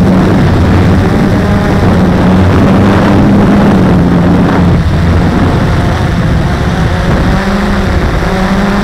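Multirotor drone's electric motors and propellers whirring steadily, picked up loud by its own onboard camera, the pitch shifting a little as it manoeuvres.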